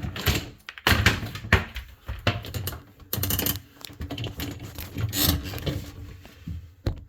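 Irregular clicking, knocking and rattling as parts inside an LG dishwasher are handled and pulled out, hard plastic and metal bumping against each other.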